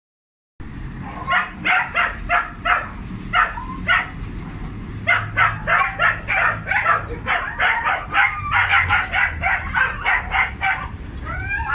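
Dogs barking over and over in quick succession, about two to three barks a second, over a low steady rumble; the barking starts about a second in, after a short silence.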